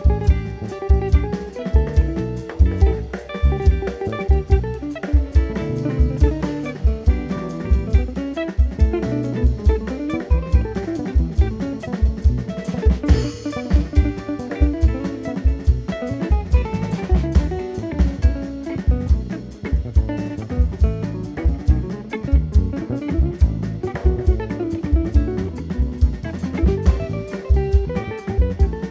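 Instrumental quartet playing live: guitar lines over bass and a drum kit keeping a steady beat with regular bass-drum hits.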